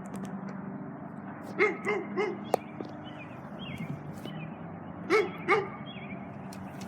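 A dog barking: three quick barks about a second and a half in and two more about five seconds in, with a single sharp click between the groups.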